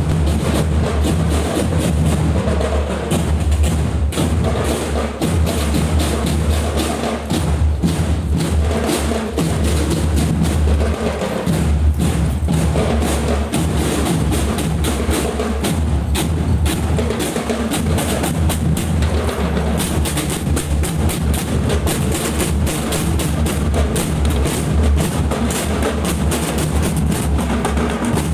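Marching drum band playing: bass drums and snare drums beating out a continuous run of rapid strokes, without a pause.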